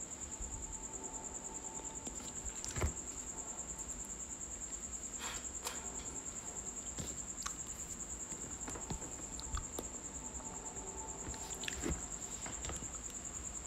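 An insect, likely a cricket, chirping steadily with a high, even, fast pulse. A few soft clicks and crinkles come from the plastic piping bag as buttercream is squeezed out, the loudest about three seconds in and near the end.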